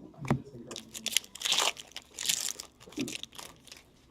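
Foil wrapper of a hockey card pack being torn open and crinkled: scattered sharp crackles, with two longer tearing rustles about one and a half and two and a half seconds in.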